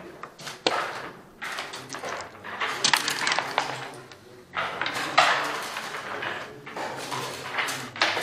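Dice rattling as they are thrown onto a wooden long-backgammon board, and checkers clacking as they are moved, in a run of sharp clicks and short rattles.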